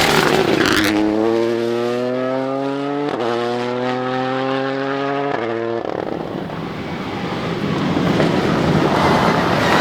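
Rally car accelerating hard up through the gears, its engine pitch climbing steadily with two quick upshifts about three and five seconds in. The engine note then gives way to a broad rushing noise that swells again in the last few seconds.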